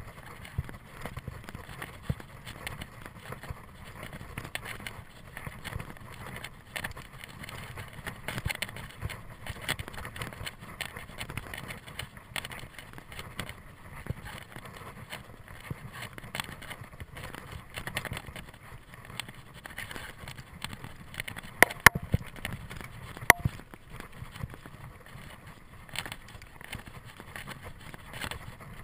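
Mountain bike riding fast over a dirt trail: tyre rumble with constant rattling and clicking from the bike as it rolls over bumps, and a few sharp knocks about three-quarters of the way through.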